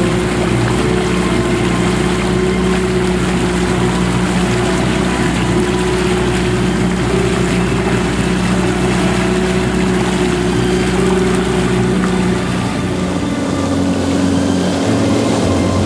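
Outboard motor running steadily with the boat under way, over the wash of water past the hull. The engine note changes about thirteen seconds in.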